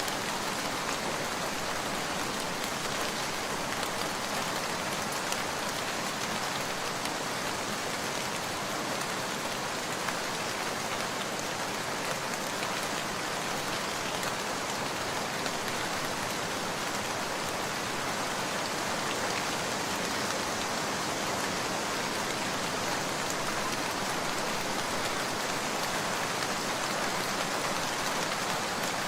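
Steady rain falling, a dense even hiss of drops with no thunder.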